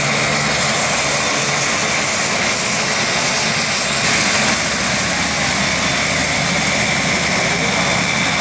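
The Rolls-Royce AE 2100 turboprops of a C-27J Spartan running close by: a loud, steady propeller drone with a high turbine whine over it.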